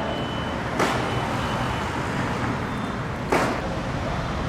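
Steady street traffic noise with two sharp bangs about two and a half seconds apart.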